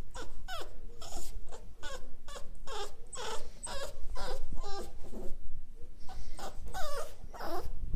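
Staffordshire Bull Terrier puppy whining: a long run of short, high-pitched whimpers, each bending in pitch, about two or three a second.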